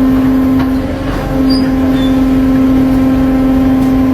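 A motor running with a steady, constant hum, dipping briefly about a second in.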